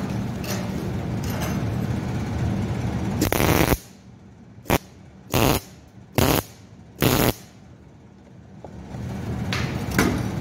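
Hobart 187 MIG welder with shielded gas laying short tack welds on a steel patch over a hole in a motorcycle exhaust header: about five brief buzzing bursts of the arc, from a little past three seconds in to about seven seconds in. A steady hum and hiss runs before them and returns near the end.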